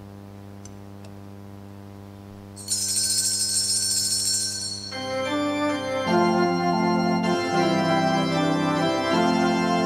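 Church organ holding a quiet sustained chord; nearly three seconds in, altar bells ring for about two seconds, marking the consecration of the chalice at Mass. From about five seconds the organ plays louder, moving chords.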